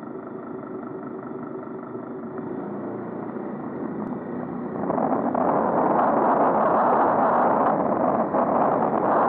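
Riding noise picked up by a bicycle-mounted camera in city traffic: a steady hum with a few held tones, then from about five seconds in a louder, even rush of wind and road noise.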